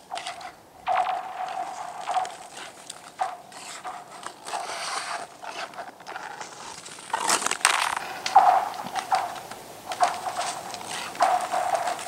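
Ice skate blades stroking across new black ice about 45 mm thick: each push scrapes, and the ice sheet answers with a ringing tone that swells with the strokes, about once a second.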